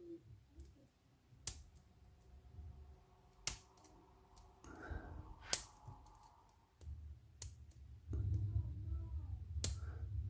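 Sharp metallic clicks of small tools and parts on a padlock's lock cylinder as its back is being worked off: about five separate clicks a second or two apart, with low handling rumble from near the end.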